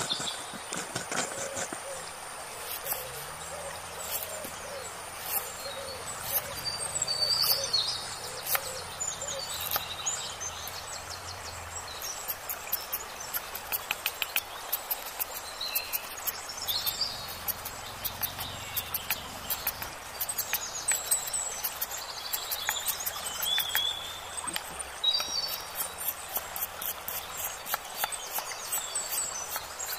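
Birds chirping, then a broad knife chopping leafy greens and onion on a wooden log in quick runs of sharp strokes.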